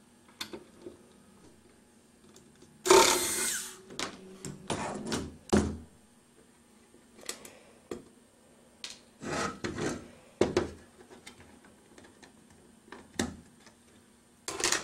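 Plastic antenna enclosure being handled as its clear plastic cover is unscrewed and taken off: a run of irregular scrapes, clicks and clacks. The loudest is a short rasping burst about three seconds in.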